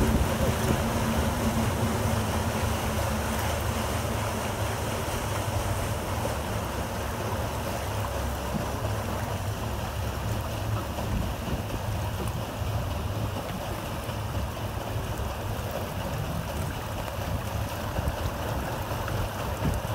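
Paddle steamer under way on the river: a steady rush and churn of water with a low hum, stronger for the first few seconds, and wind buffeting the microphone.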